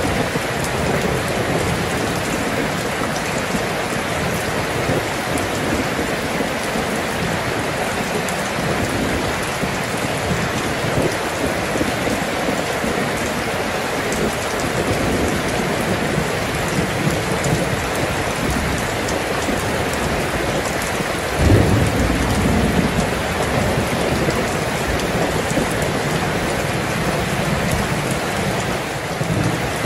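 Steady rainfall, with a short low rumble of thunder about two-thirds of the way through.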